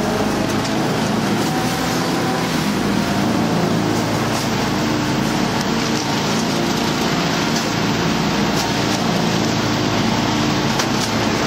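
Rotopress rear-loading garbage truck running steadily at raised engine speed while its compaction drive works, with a few faint knocks as bin bags land in the rear hopper.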